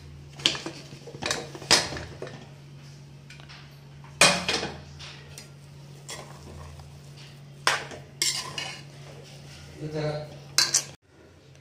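Metal clinks and knocks on an aluminium pressure cooker as it is opened, then a steel spatula scraping and knocking against the pot while stirring cooked rice and moong dal. The knocks come one at a time, the loudest about four seconds in, over a low steady hum.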